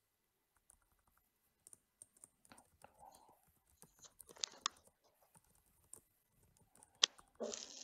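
Computer keyboard typing: single key presses and short runs of keys, faint, with a louder flurry of keystrokes near the end.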